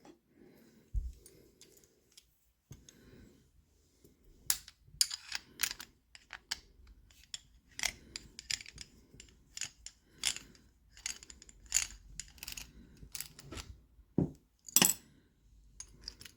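Small steel parts of an old Yale high-security padlock, its ball bearings and actuators, clicking and clinking onto a hard surface as the lock is taken apart. There are few sounds for the first few seconds, then a run of sharp clicks, with the loudest near the end.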